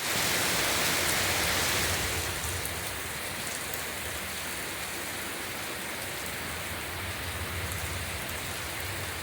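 Steady rushing of wind and water running down a mountainside, a little louder for the first couple of seconds and then level.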